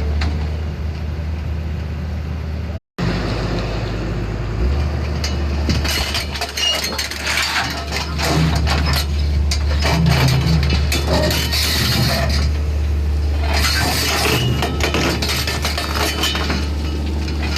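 Excavator's diesel engine running with a steady low drone, and from about five seconds in a dense, irregular metallic clanking and rattling from the machine as it works onto the trailer.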